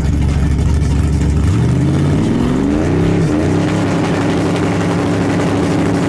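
A fourth-generation Chevrolet Camaro's engine held at the drag-strip start line. It runs low and steady, revs up about a second and a half in, dips briefly, then holds at a steady higher rpm, as a car does when staged before launch.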